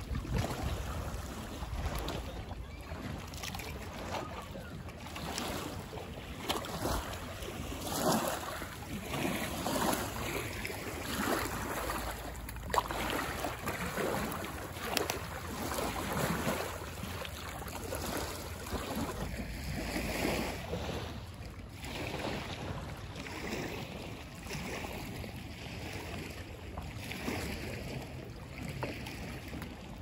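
Small waves on Lake Thun lapping and washing against the shore in irregular swells, with wind rumbling on the microphone.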